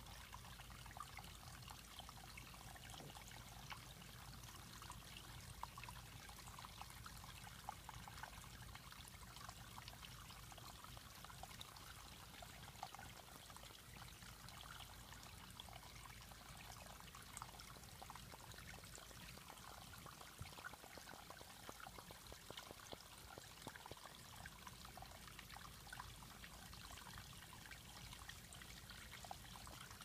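Small rock waterfall trickling and splashing steadily into a garden pond, faint.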